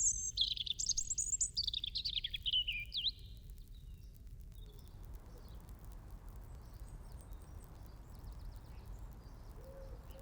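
A songbird singing one loud, fast phrase of notes that falls in pitch over about three seconds, then quieter open-air background with faint distant birdsong.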